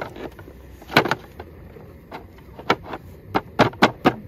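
Wooden knocks and clicks from a roll-up slatted wooden camping table top being pressed and tapped into its frame. A few separate knocks come first, then a quick run of knocks from about three seconds in.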